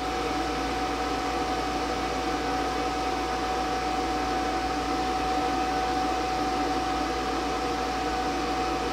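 A steady fan-like hum with a constant mid-pitched whine that swells slightly at the start, then holds even.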